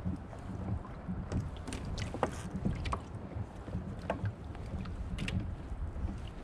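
Wind buffeting the microphone and water against a kayak hull, a steady low rumble, with a handful of scattered light clicks and knocks.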